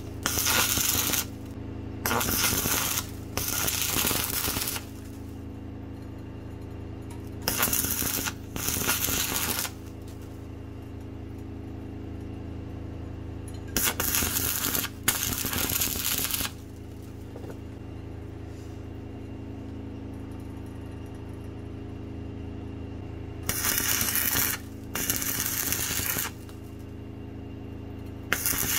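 Stick welding on a multi-groove belt pulley: about ten short bursts of electric arc, each a second or so and mostly in pairs with brief gaps, over a steady low hum.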